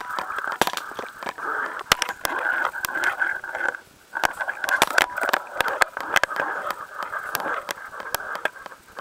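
A small camera scraping and knocking against rock as it is lowered down a narrow hole: a scratchy rustle with many irregular clicks. It goes briefly quiet about four seconds in.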